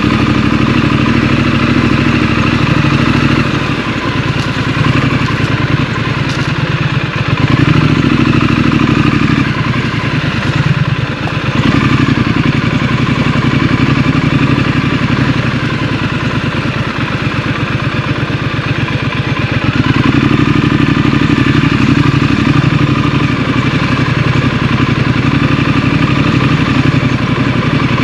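Scrambler motorcycle engine running while the bike is ridden, its pitch rising and falling several times as the throttle and gears change, over a steady rushing noise.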